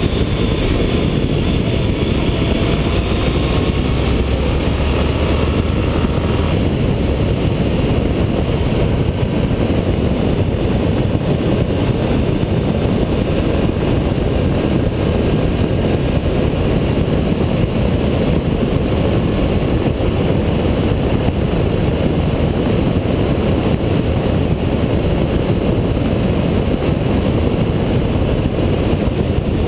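Steady wind rush over a motorcycle-mounted camera, mixed with a Honda ST1300's V4 engine running at road speed. A faint rising whine comes in the first six seconds or so as the bike picks up speed.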